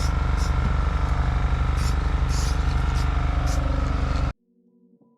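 A small engine running steadily, with short bursts of high hiss coming and going over it, cut off abruptly about four seconds in. Faint piano music follows.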